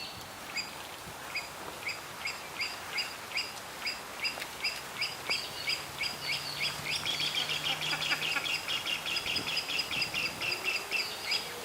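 Laughing kookaburra calling: a long run of short repeated notes, about two a second at first, growing faster and louder in the second half.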